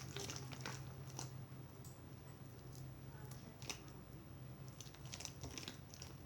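Slime being kneaded and mixed by hand in a bowl: soft, sticky squelches and little clicking pops at irregular moments.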